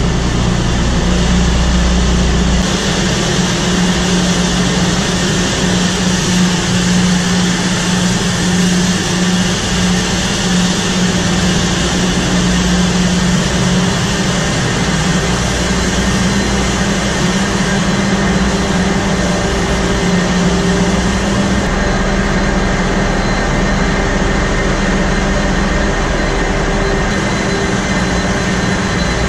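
Loud, steady engine-room noise of a large ship underway: the running Wärtsilä RT-flex82T seven-cylinder two-stroke main engine and the auxiliary machinery around it, a constant machinery roar with a steady droning hum over a low rumble.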